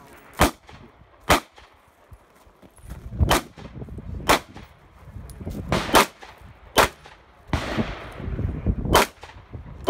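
9mm pistol firing single shots at an uneven pace, about eight sharp reports over ten seconds, some a second apart and some with longer pauses between them.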